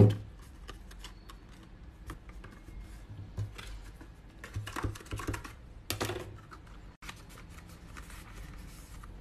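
Cardstock gift bag being handled on a cutting mat: small clicks, taps and paper rustles as the hot-glued bottom is pressed into place and the bag is turned over, with a few louder clusters of taps around the middle.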